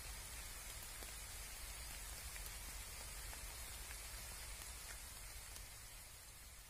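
Faint rain falling: a steady hiss with scattered drop ticks over a low rumble, fading away near the end.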